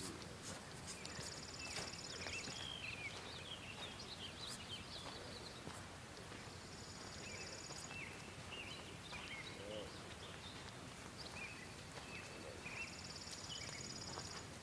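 Birds singing outdoors: scattered chirps, and a high buzzy trill that comes three times, each lasting over a second. Faint footsteps on a dirt path sound underneath.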